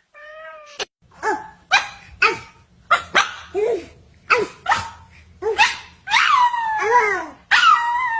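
A pet animal calling in a quick run of about a dozen short, sharp, barking calls, followed by two longer drawn-out calls with sliding pitch near the end.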